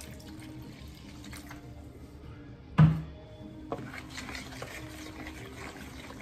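Vinegar poured from a plastic gallon jug into a plastic bowl of spice mix, then a single loud thump about three seconds in as the jug is set down on the counter. After that, a wooden spoon stirs and sloshes the liquid marinade in the bowl.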